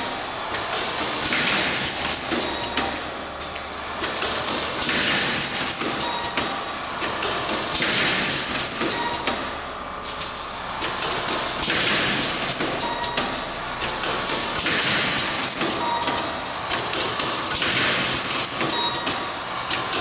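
Automatic connector assembly machine running: a continuous mechanical clatter, with a hissing surge every second or two as it cycles.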